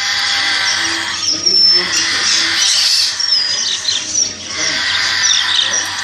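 Many caged parakeets and budgerigars calling at once: a dense, steady chatter of chirps and squawks, with short whistled notes cutting through.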